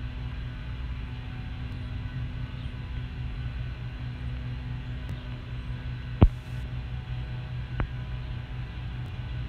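A steady low mechanical hum, with one sharp knock about six seconds in and a fainter click a second and a half later.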